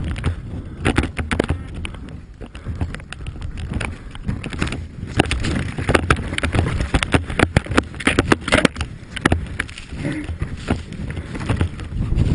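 Snowmobile running, a steady low rumble with many sharp knocks and clatters throughout.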